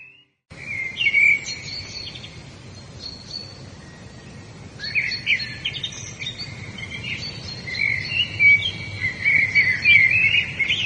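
Several songbirds singing, with quick chirps and trills that grow busier from about halfway through, over a low steady background rumble. The sound starts about half a second in, after a brief silence.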